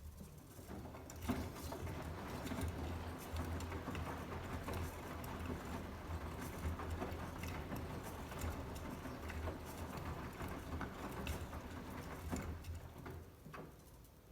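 Beko washing machine's drum turning a load of wet towels in a 60 °C wash: a low motor hum under a dense run of small clicks from the tumbling load. It starts just after the beginning and stops about a second before the end, one tumble phase of the wash cycle.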